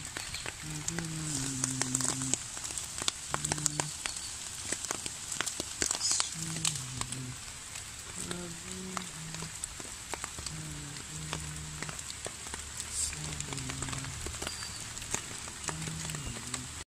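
A low melody of short held notes stepping up and down, ending on a falling note, over a constant crackle like rain or static.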